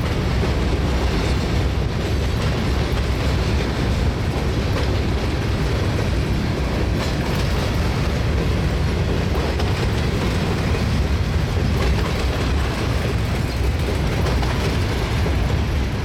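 Loaded covered hopper cars of a freight train rolling past: a steady rumble of steel wheels on the rails, with faint clicking as the wheels cross rail joints.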